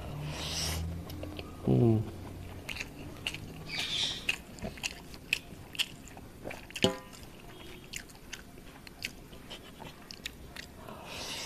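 Close-up chewing and mouth sounds of a person eating rice and sautéed greens with his hand: many short wet smacks and clicks with some crunch, and a brief hum about two seconds in.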